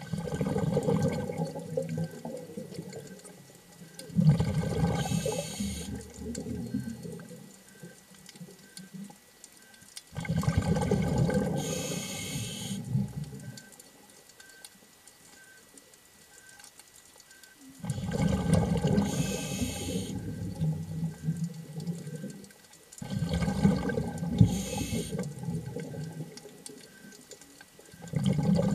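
Scuba diver breathing through a regulator underwater. A hiss on the inhale and a rush of exhaled bubbles repeat every few seconds, with a longer pause about halfway through.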